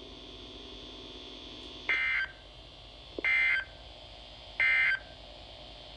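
NOAA Weather Radio Emergency Alert System end-of-message signal: three short bursts of buzzy digital data tones, about a second and a quarter apart, starting about two seconds in, over faint radio hiss. The bursts mark the end of the flood warning broadcast.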